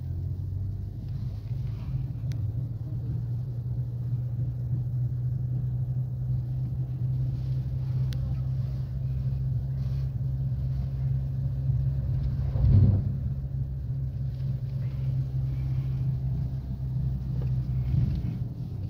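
Steady low road rumble inside a car cabin as the car is towed with its engine off, with a brief bump about two-thirds of the way through.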